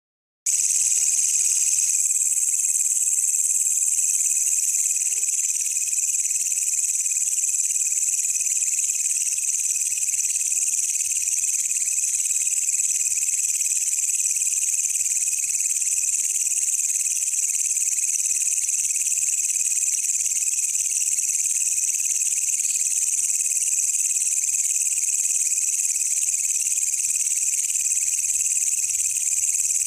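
Walang kecek katydid calling without a break: a steady, high-pitched buzzing trill.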